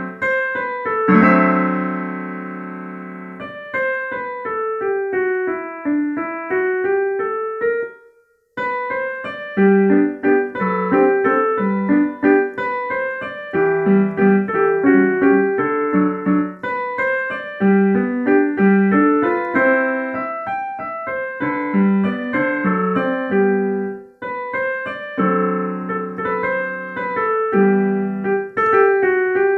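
Digital piano playing a classical piece: held chords at the start, then slower single notes, a short break about eight seconds in, then quicker continuous passagework.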